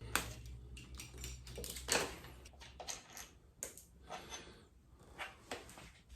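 Light, irregular clicks and clinks of hand tools and metal parts being handled while taking apart the motorcycle's handlebar clamps and top triple clamp. A low hum runs underneath for the first two seconds, then stops.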